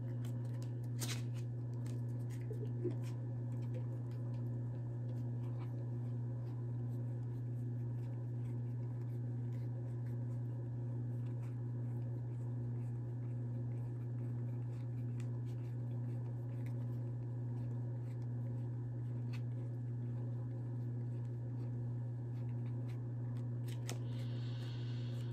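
A deck of Pokémon trading cards handled and shuffled by hand: faint scattered card clicks and rustles, with a brief riffle-like hiss near the end. A steady low hum runs underneath.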